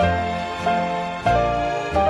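Slow instrumental background music, a new note or chord struck about every 0.6 seconds and each fading before the next.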